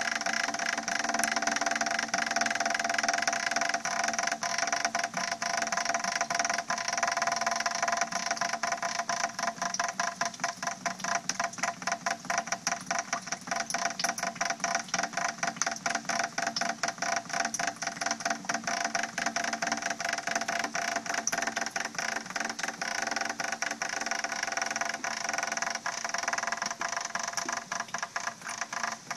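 Rainwater dripping and trickling into plastic buckets and a plastic watering can: a dense, fast patter of drops. A steady hum runs underneath.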